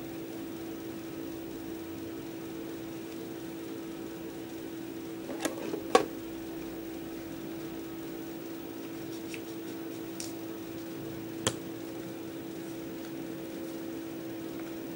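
Wall-mounted electric fan running with a steady hum. Paper is handled close by: a few short, sharp sounds from the envelope and card, two close together about six seconds in (the loudest) and one more about eleven and a half seconds in.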